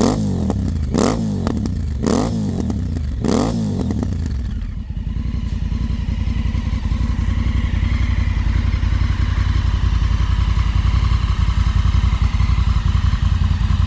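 Honda CRF1000L Africa Twin's parallel-twin engine running through an aftermarket Akrapović exhaust: four quick throttle blips in the first few seconds, each rising and falling in pitch, then it drops back and idles steadily.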